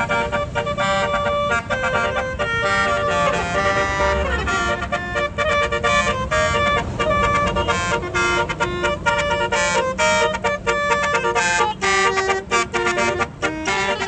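Tour bus's basuri telolet horn playing a melody: several notes sounding together that step up and down in pitch, over the low rumble of the bus's engine.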